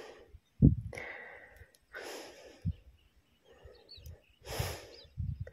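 A man breathing hard, with a breathy, hissing breath about every second, in pain from a fishing hook stuck in him. There is a dull bump about half a second in.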